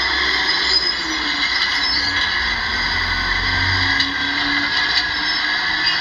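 Crawler bulldozer working: a low engine rumble under a steady high-pitched squeal and clatter from its steel tracks.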